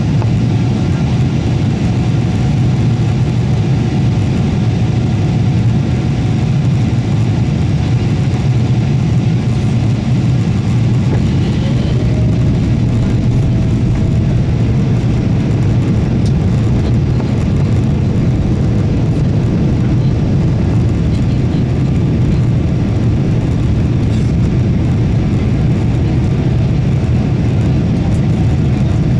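Steady low engine rumble, with a faint whine that rises slightly about twelve seconds in.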